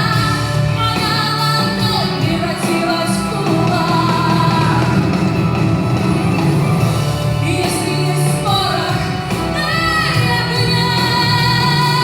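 A woman singing a song over instrumental backing music, holding long notes with slides between pitches.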